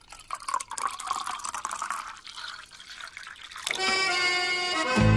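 Milk pouring in a stream from a jug into a tall drinking glass, splashing and gurgling as the glass fills. Music comes in about three and a half seconds in.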